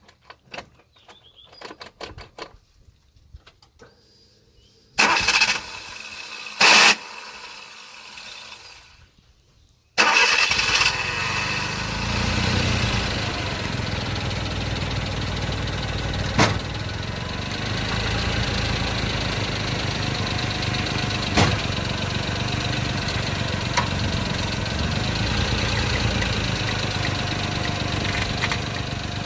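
Suzuki Jimny's engine starting about ten seconds in, then idling steadily, with a few sharp clicks over the running. Before it starts there are light clicks and handling noises and a single loud knock.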